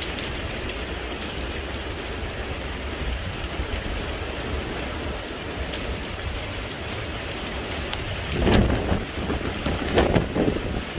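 Heavy rain falling steadily in strong wind, with a constant low rumble of wind on the microphone. Two louder gusts swell up near the end.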